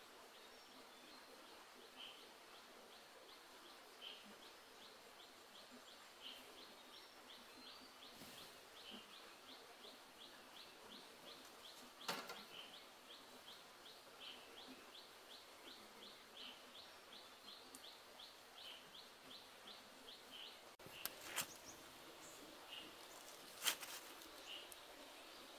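Near-silent streamside ambience with a faint short chirp repeated about every two seconds and, in the middle, a rapid ticking trill of about three ticks a second. A few sharp clicks stand out, the loudest near the end.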